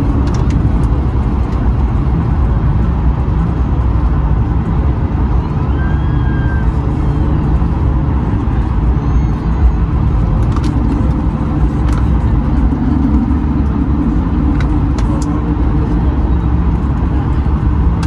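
Airliner cabin noise inside an Airbus A220-100 during the landing rollout: a steady low rumble of the engines and the wheels rolling on the runway as the aircraft slows, with a few faint clicks.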